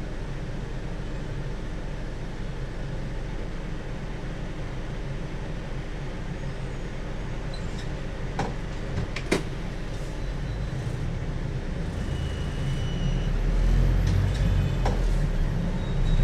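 Inside a city bus: its drivetrain runs with a steady low hum while it stands at a red light, then grows louder as the bus pulls away near the end. Two sharp clicks sound about halfway through.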